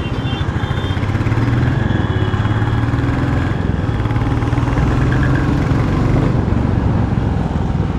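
Royal Enfield Classic 350's single-cylinder engine and exhaust running steadily as the motorcycle rides along, a rapid even pulsing beat.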